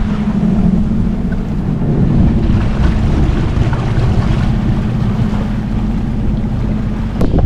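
Strong wind buffeting the microphone over a jet ski's engine running as a steady low hum, with a sharp click just before the end.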